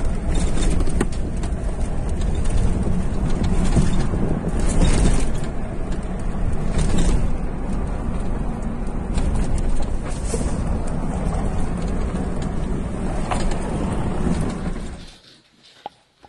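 A vehicle being driven over a rough, broken road, heard from on board: a steady rumble of engine and road noise with knocks and rattles. It drops away suddenly about fifteen seconds in.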